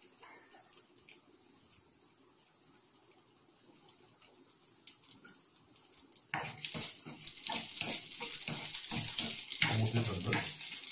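Sliced onions, garlic, ginger and chillies frying in coconut oil in a steel kadai, a faint sizzle with occasional pops. About six seconds in, a spatula starts stirring them, scraping against the pan, and the sizzle grows much louder.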